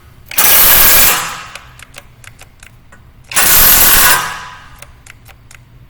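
Cordless electric impact wrench hammering on a strut bolt in two short bursts, about three seconds apart, each under a second long. The gun is not strong enough to tighten the bolt fully.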